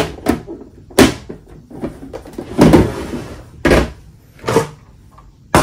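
Clear plastic food-storage containers and fruit being handled and set down on a wooden table: a series of about six sharp hollow knocks, roughly one a second, with a longer scraping one about halfway through.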